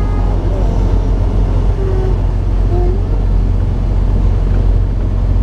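Steady low drone of a semi-truck's diesel engine and road noise, heard from inside the cab while cruising in highway traffic.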